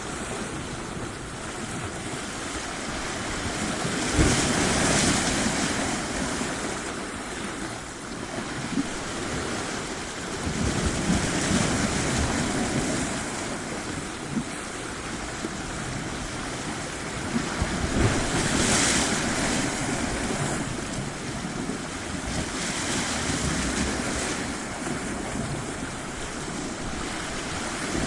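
Sea waves breaking and washing up a shore. The surf swells and ebbs about four times.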